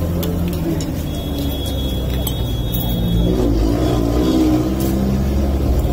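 Street traffic: a vehicle engine running close by, a steady low rumble, with voices in the background and a few light clicks.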